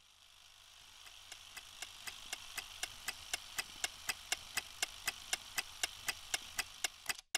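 Rapid, evenly spaced ticking, about four ticks a second, over a soft hiss that fades in. The ticks grow a little louder, then everything cuts off suddenly near the end.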